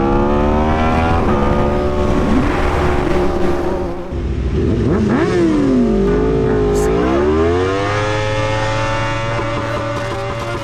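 Aprilia RSV4 motorcycle's V4 engine running under way, its pitch climbing, holding, then dropping and dipping in the middle before rising again and holding steady, as the throttle and gears change.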